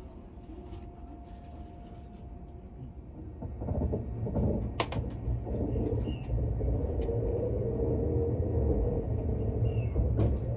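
Thunderbird limited express electric train, heard from inside the carriage, pulling out of the station: a low rumble that swells about three and a half seconds in as the train gathers speed. A single sharp clack comes about a second later, and a steady hum runs under the rumble after that.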